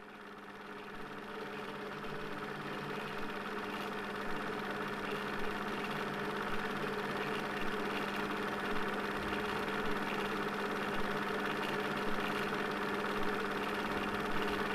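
Projector running: a steady mechanical hum that fades in over the first couple of seconds, with a faint tick about once a second.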